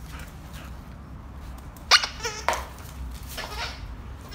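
Rubber squeaker in a plush dog toy squeaked a few times, the loudest about two seconds in, another just after, and fainter ones near the end.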